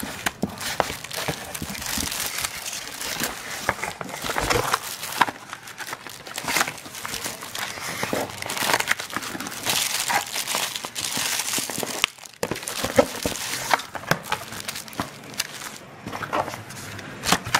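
Clear plastic bag around a computer keyboard crinkling and crackling as it is handled and lifted out of its cardboard box, with irregular sharp clicks and a brief lull about two-thirds through.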